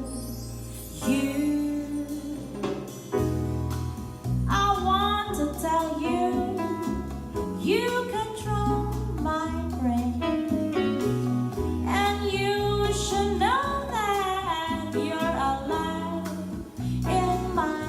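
Jazz-style ballad played back through Polk Audio TSx220B bookshelf speakers, with a deep bass line, guitar and a gliding lead melody line over it.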